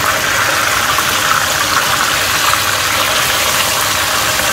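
A whole fish frying in hot oil in a wok, sizzling steadily and loudly.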